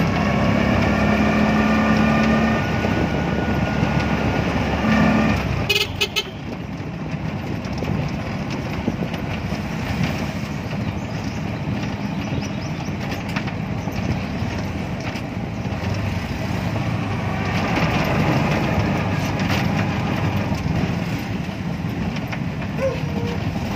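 Vehicle engine and road noise heard from the driver's seat while driving. A steady engine whine runs for the first five seconds or so, a few sharp clicks come at about six seconds, and then a rougher rumbling drive sound follows.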